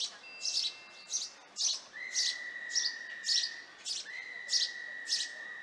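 House sparrows chirping at the nest while a chick is fed: short, high chirps repeated about twice a second. A steady high tone is held for nearly two seconds, twice, in the second half.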